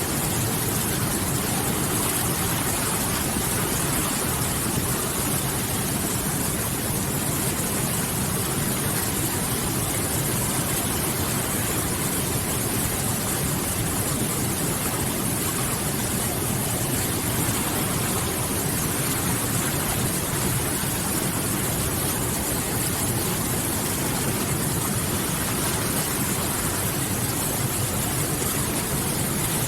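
River water rushing and splashing in a steady, even stream.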